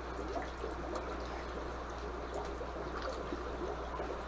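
Steady trickle of water running into an aquarium, as from a running filter's outflow.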